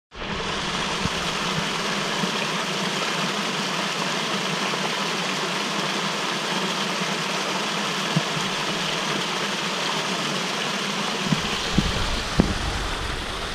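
Small creek waterfall splashing over a rock ledge into a pool: a steady rush of water. Near the end a low rumble and a few short bumps join it.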